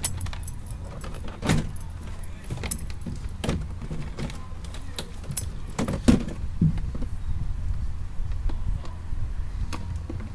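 Scattered clicks and knocks of hand tools and plastic door trim being handled and pried while a car door panel is taken apart, over a steady low hum.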